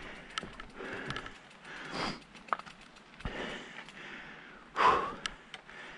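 A person breathing hard from the effort of pushing a bike up steep trail steps, in repeated heavy breaths with the loudest exhale about five seconds in. Scattered clicks and scuffs of footsteps and the bike on the gravel steps.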